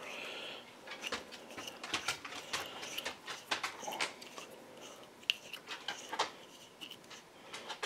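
Faint, irregular small clicks and scrapes of a Hall effect sensor's threaded metal body being turned by hand into its mount.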